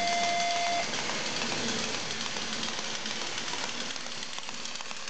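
Toy train running round its track: a steady whirring rattle of its small motor and wheels, with faint fine ticks. The held last note of the train's built-in electronic tune stops about a second in.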